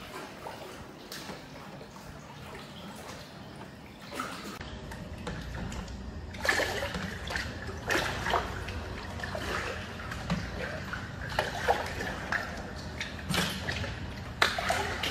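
Water sloshing and splashing against a boat inside a corrugated metal culvert. About four seconds in, a low steady rumble comes in, and from then on it is broken by irregular sharp splashes and knocks.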